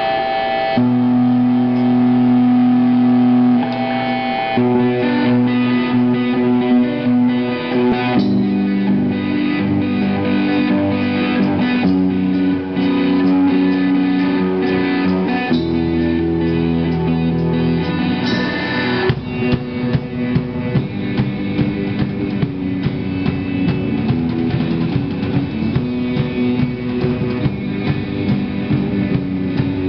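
Live rock band playing an instrumental passage: electric guitars and bass hold long chords that change every few seconds, then the drum kit comes in with a steady beat about two-thirds of the way through.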